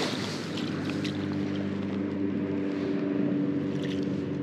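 A steady, low motor hum holding one even pitch, with a light haze of wind and a few faint clicks.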